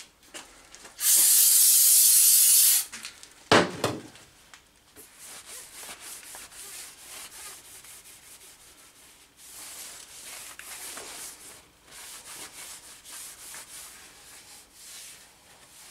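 Shop towel wiping oil off the lathe's bed ways in repeated rubbing strokes. Near the start comes a loud hiss lasting nearly two seconds, followed by a sharp knock.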